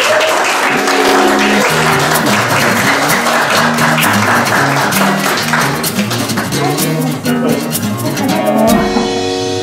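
A room of people applauding, with background music entering about a second in; the applause stops near the end and the music carries on.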